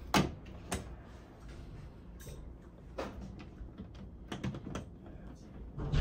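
Plastic light-switch wall plate being pressed into place over the switches: scattered sharp clicks and light knocks, a few close together about two thirds of the way in.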